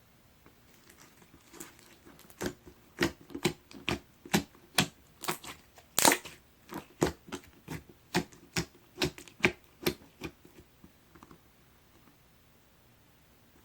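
Clear slime squeezed and pressed by hand, giving a rapid series of sharp, wet popping clicks, about three a second, that start about two seconds in and die away after about ten seconds.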